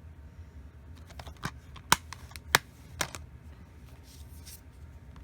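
Plastic Blu-ray cases being handled, giving a few sharp clicks and taps, the loudest about two seconds in.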